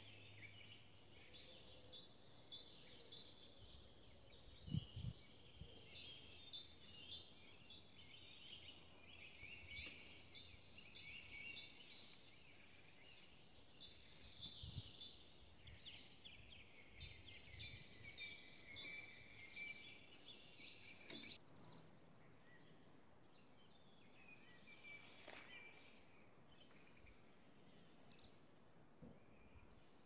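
Faint birdsong outdoors: a busy run of quick, high chirps and song phrases for about the first twenty seconds, thinning to a few scattered calls after that.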